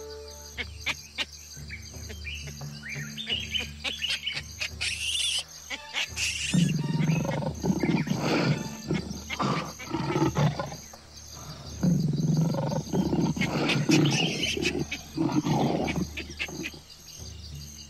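Lions growling and snarling in two long, loud bouts starting about six seconds in, preceded by shrill animal calls and clicks.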